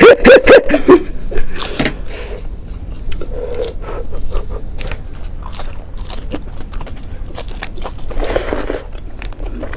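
Close-up eating sounds: chewing, biting and mouth clicks, with a loud cluster of bursts in the first second and then many short wet clicks.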